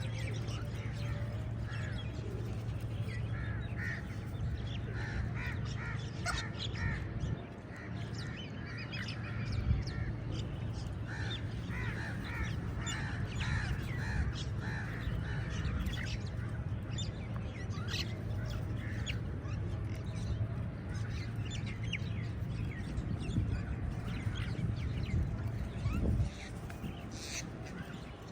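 A flock of crows cawing over and over, many short calls overlapping, over a steady low hum.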